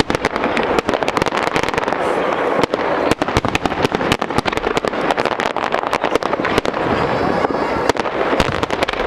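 Aerial fireworks display: a dense, irregular barrage of shells bursting, many sharp bangs and crackles a second with no let-up.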